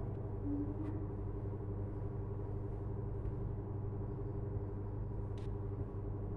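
Steady low mechanical hum with a few fixed low tones in it, and two faint ticks, one about a second in and one near the end.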